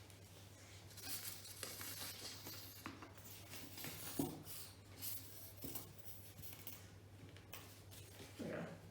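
Faint handling sounds of flat-pack drawer parts being worked on: rustling and scraping with scattered light clicks, and a sharper knock about four seconds in, over a steady low hum.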